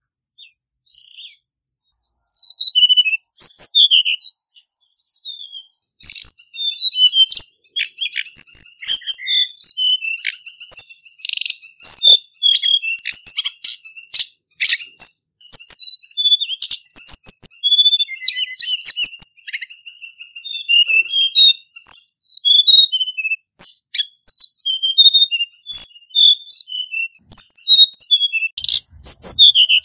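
Male hill blue flycatcher singing a continuous run of short, quick, high sliding notes, broken by rapid trills.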